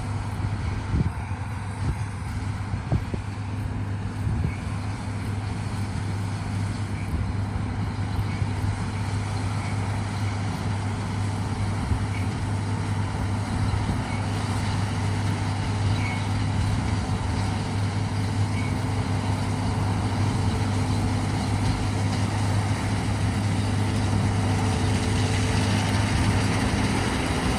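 Heavy farm machinery's diesel engine running steadily, with a deep hum that slowly grows louder.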